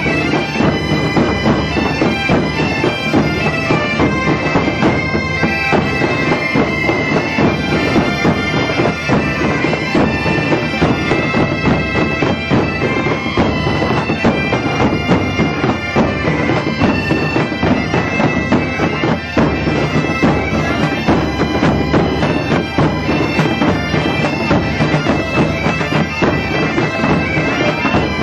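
A large ensemble of Galician bagpipes (gaitas) playing a tune together, the drones and chanters sounding continuously, with a drum beating the rhythm underneath.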